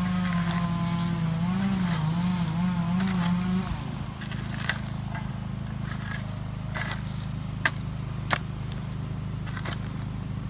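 An engine runs steadily, its pitch wavering up and down, then dropping to a lower hum about four seconds in. Over it a steel shovel scrapes and crunches into loose biochar, with a few sharp clicks.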